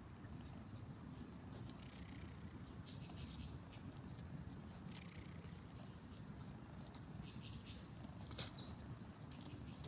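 Faint outdoor ambience with two short, high chirps that fall in pitch, about two seconds in and again near the end, over scattered light ticks and scratches.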